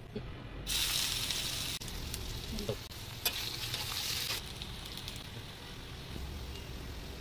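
Chopped onions frying in hot oil in a pan. A loud sizzle starts suddenly about a second in as they hit the oil, swells again around three seconds with a sharp knock of the spatula against the pan, then settles to a steadier, quieter sizzle as they are stirred.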